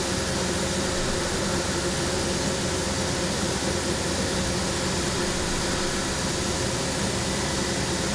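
Heller CP 6000 five-axis machining center finish-milling a pump housing with a ball end mill. The spindle and cutting make a steady, even noise with a few held tones.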